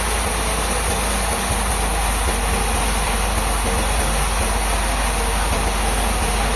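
Sawmill machinery running steadily: a constant engine-like low rumble under a broad hiss.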